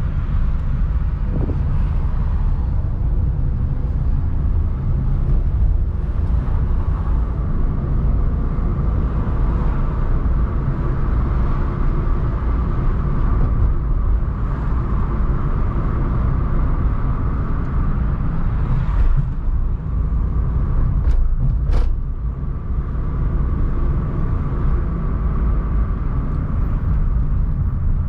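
Car driving along city streets: a steady low rumble of engine and road noise, with two short clicks about three-quarters of the way through.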